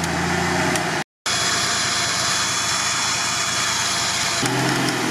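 UAZ engine running steadily, then after a brief dropout a steady high whine with hiss from the electric winch on the front bumper reeling in its cable under load. The engine's low hum comes back near the end.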